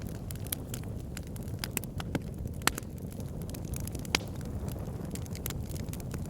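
Wood fire crackling in a fireplace: a steady low rumble of burning with many small scattered snaps, and two louder pops a little under halfway and about two-thirds of the way through.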